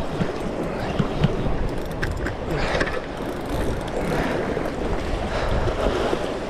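Sea surging and washing against the rock ledge, with wind buffeting the microphone and a few light knocks.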